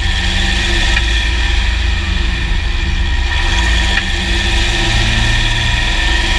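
Drivetrain and 3.0 CRD diesel engine of a 2009 Jeep Grand Cherokee WK running, heard from underneath the vehicle at the skid plate: a steady low drone with a faint whine over it. Light clicks come through about a second in and again about four seconds in, the kind of underbody clicking the owner is chasing alongside a clunk when the drivetrain loads and unloads.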